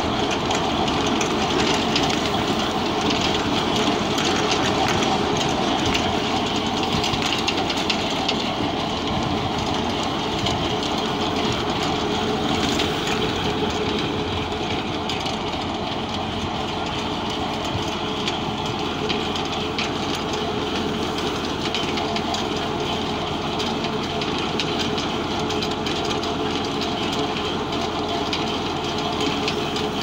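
Tractor-drawn F209 potato digger at work: steady clattering and rattling of its rod-chain elevator shaking potatoes and soil, with the tractor engine running underneath.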